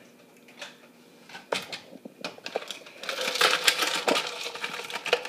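Ice being ground in a shaved-ice machine: a few scattered clicks, then from about three seconds in a dense, scratchy crunching.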